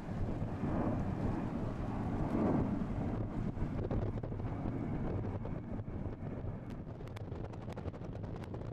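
Wind buffeting the microphone over the low rumble of a Boeing 747-400's four jet engines climbing out after takeoff. Scattered sharp crackles come in the second half.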